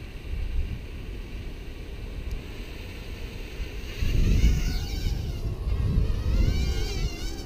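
SPC Maker 90X micro quadcopter's motors: a faint steady whine at first, then about four seconds in they spin up into a louder high whine that rises and wavers in pitch with the throttle as the drone lifts off. Wind rumbles on the microphone throughout.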